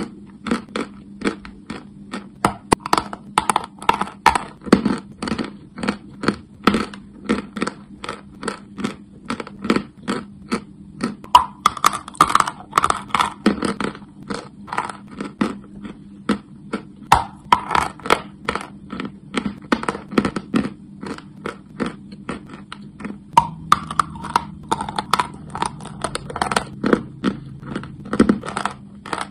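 Chalk crunching close to the microphone: a long run of short, crisp crunches, about two to three a second, some in quick clusters, over a faint steady hum.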